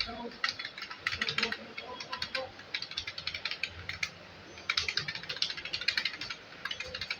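Computer keyboard keys clicking rapidly and unevenly as numbers are typed at speed, with a short pause a little past the middle.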